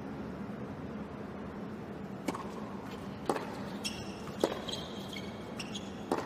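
Tennis ball struck by rackets during a doubles rally on a hard court: four sharp hits about a second apart, starting about two seconds in, with short high shoe squeaks between them. A steady background hum runs under it.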